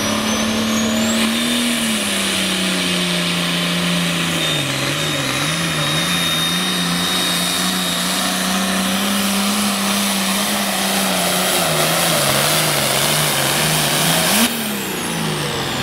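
Turbocharged diesel engine of an International Harvester pulling tractor running flat out under load while dragging the weight sled, its note wavering up and down twice. About fourteen and a half seconds in it jumps briefly and then falls away as the throttle comes off at the end of the pull.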